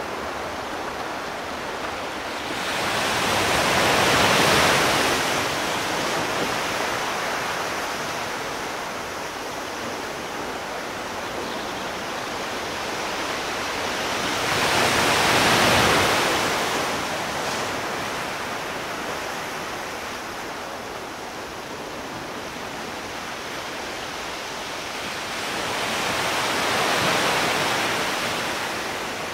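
Sea surf: three waves break about every eleven to twelve seconds, each a swelling rush that rises and falls away, with a steady hiss of washing water between them.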